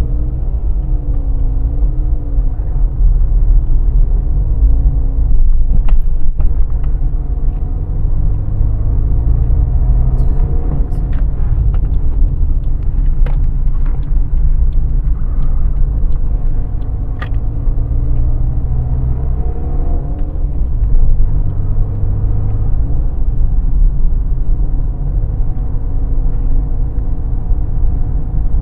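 Car driving, heard from inside the cabin: a steady low rumble of engine and tyres, with the engine's pitch slowly rising and falling as the car speeds up and slows. A few short knocks are heard along the way.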